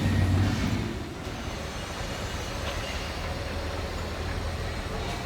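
Steady low mechanical rumble, louder with a deep hum in the first second, then even.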